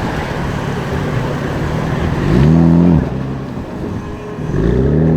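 A BMW's engine revved twice in short blips, the pitch rising and dropping back each time; the first rev, a little over two seconds in, is the louder. Steady noise from other running cars underneath.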